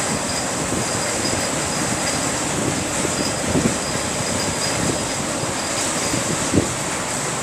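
Steady road-travel noise: tyres and engine rumble of vehicles on the move behind a Claas Lexion 560 combine harvester. A few short thumps come over bumps, the loudest about six and a half seconds in.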